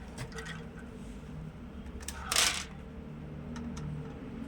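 Light clicks and one short, louder clatter about two and a half seconds in, from a hand-worked syringe-powered hydraulic model excavator handling small plastic beads.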